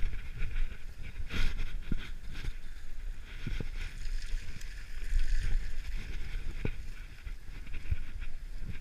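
Mountain bike riding down a dirt trail: wind rumbling on the microphone, a steady hiss of tyres rolling over the ground, and scattered knocks and rattles from the bike over bumps.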